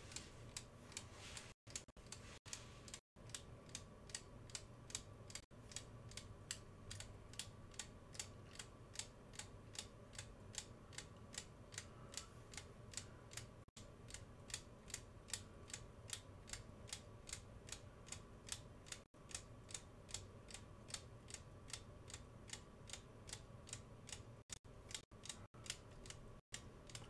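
3D-printed plastic tourbillon escapement ticking: a faint, quick, even run of small plastic clicks as the balance wheel swings and the escape wheel steps round under hand tension on the gear.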